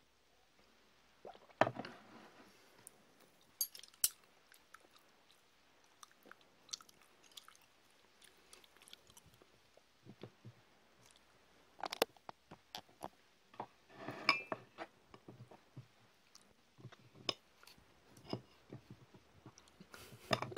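Eating sounds: chewing and biting, mixed with a metal fork clicking and scraping against a ceramic plate as food is cut and picked up, in short irregular bursts starting about a second and a half in.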